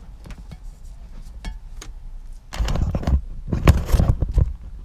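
Handling noise close to the microphone: scattered small clicks and knocks, then two loud stretches of rough rustling and rumbling about two and a half seconds in and again a second later, as the camera and torch are moved about.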